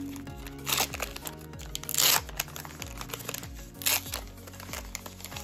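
Foil wrapper of a Pokémon card booster pack crinkling as it is torn open, in three short bursts, the loudest about two seconds in. Background music plays throughout.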